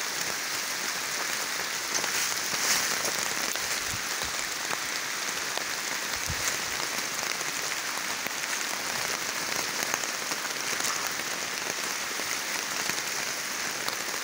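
Steady rain falling on wet gravel ground: a constant hiss with scattered drop taps.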